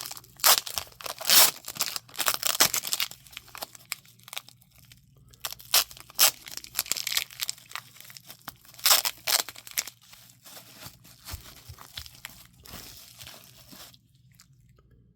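Packaging being torn and crumpled by hand as a pocket knife is unwrapped: irregular crackling and tearing rustles that die away about a second before the end.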